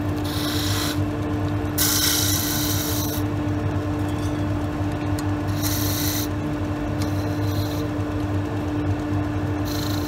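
Wood lathe running with a steady hum while a hand turning tool cuts the spinning drawer-knob blank between centres. It makes bursts of hissing shavings, the longest about two seconds in and shorter ones near the start, around six and seven seconds, and at the end.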